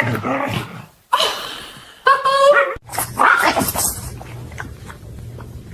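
A dog whining and yipping in a few short outbursts, followed by a faint steady low hum.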